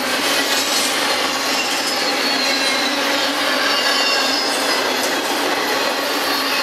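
CN double-stack intermodal freight train's container well cars rolling past at speed: a steady rush of steel wheels on rail with faint high squealing from the wheels.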